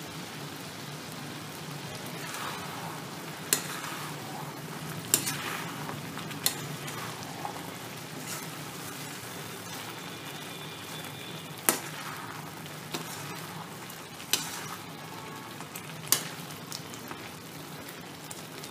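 White pumpkin halwa (grated pumpkin cooked in milk, condensed milk and ghee) sizzling in a metal pan as it is stirred with a steel spoon. The spoon clinks sharply against the pan every couple of seconds.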